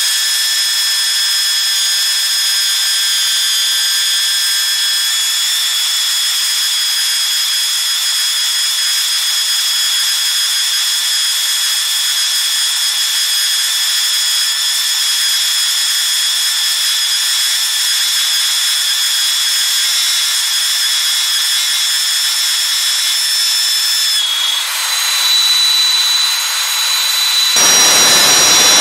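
Home-built turbojet engine with afterburner running steadily: a loud, high-pitched whine of several tones over a hiss, with no low rumble. The whine shifts about 24 seconds in, and near the end a full jet roar with its low rumble comes in.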